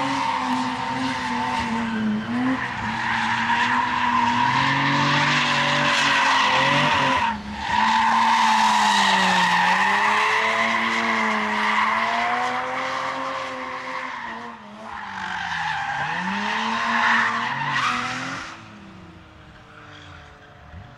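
A BMW E34 535's straight-six engine revs up and down hard while the car drifts, its rear tyres squealing and spinning. The noise breaks off briefly about seven seconds in and falls away sharply near the end.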